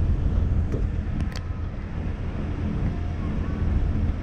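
Ferry's engine rumbling steadily as it docks, with a few short clicks about a second in.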